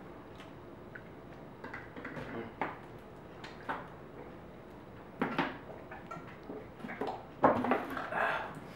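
Eating and drinking at a table: faint clinks and scrapes of a spoon in a plastic pudding cup and a plastic two-litre soda bottle being handled, with a few louder noisy sounds about five seconds in and again near the end.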